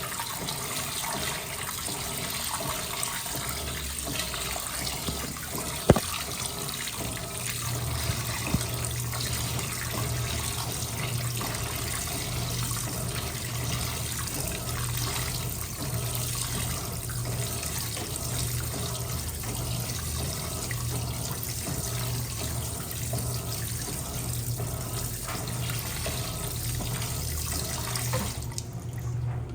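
Electrolux LPE16 washing machine with water running in it steadily, a low hum joining in about a quarter of the way through and two sharp clicks early on. The water stops suddenly near the end.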